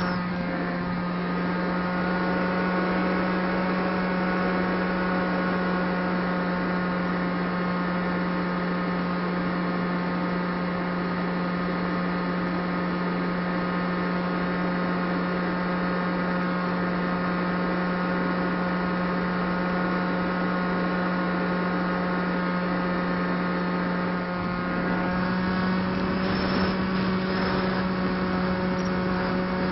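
Brushless 2212 electric motor spinning a 7x4 APC propeller on a Stryker flying wing, a steady whine at near-constant throttle with wind noise, heard through the plane's own onboard camera microphone. About 25 seconds in it dips briefly, then comes back a little louder.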